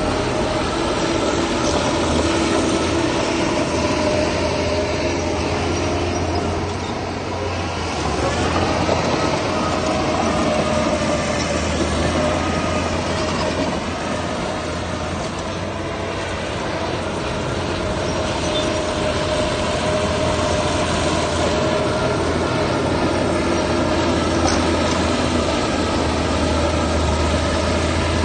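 Heavy diesel earthmoving machinery running steadily, its engine note easing off briefly a couple of times.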